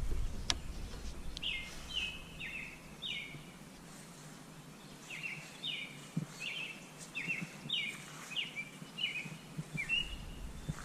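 A songbird singing in two phrases of short, falling chirps: about four notes starting a second and a half in, then about eight more starting about five seconds in. A single sharp click comes about half a second in.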